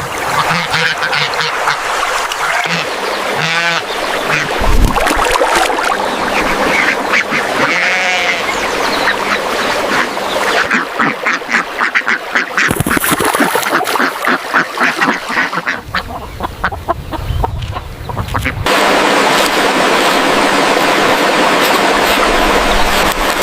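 Ducks quacking, many short calls in quick succession. About two-thirds of the way through, an even steady hiss takes over.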